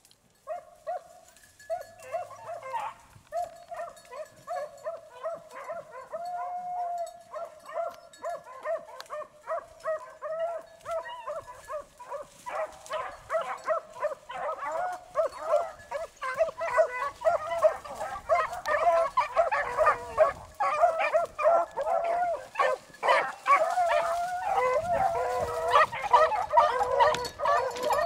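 A pack of beagles baying on a rabbit's scent trail, many voices overlapping. It starts about a second in and grows louder and denser toward the end.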